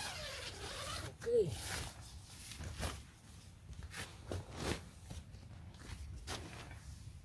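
A zipper pulled in short, irregular rasps, with nylon tent fabric and a bag rustling as gear is handled. A brief squeak comes about a second and a half in.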